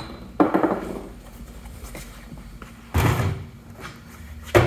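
Red plastic case of a bearing race and seal driver set being handled and opened, its steel driver discs knocking: three sharp knocks and clunks, about half a second in, at about three seconds with a low thud, and just before the end.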